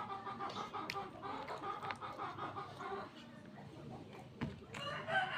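Close-up chewing and mouth sounds of someone eating, with faint breathing-like noises. A louder, longer sound starts near the end.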